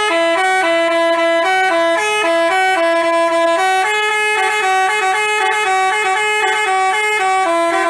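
Basuri telolet bus horn playing a tune: a melody of held, horn-like notes stepping up and down in pitch every fraction of a second, moving to higher notes about four seconds in.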